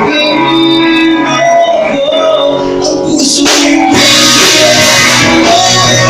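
Live band playing rock music with guitars to the fore. It grows fuller and louder a little past halfway through.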